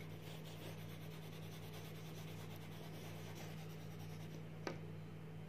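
Coloured pencils scratching faintly on colouring-book paper over a steady low hum, with a short tap about four and a half seconds in.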